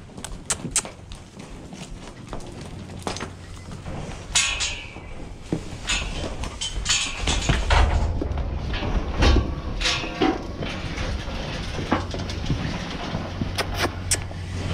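Cattle being driven through a pen and into a steel pipe loading chute: scattered knocks and clanks of metal gates and panels, and hooves on packed dirt. A low rumble builds from about six seconds in.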